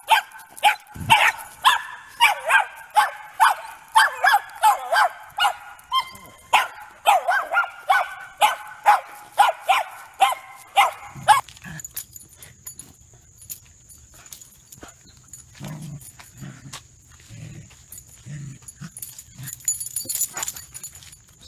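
Small terrier barking rapidly and repeatedly on the leash, about two to three barks a second, the reactive barking typical of leash reactivity. About eleven seconds in the barking stops, leaving only quieter clicks and a few soft thumps over a faint steady high whine.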